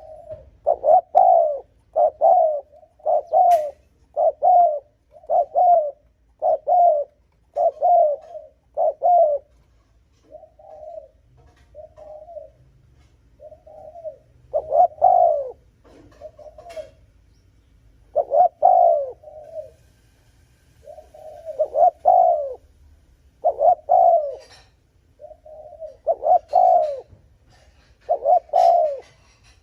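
Spotted dove cooing: a string of short, low coos, each dipping slightly in pitch, about one a second at first, then softer for a few seconds, then louder again in uneven bunches. This is the fast 'gù' coo used to stir up rival wild doves.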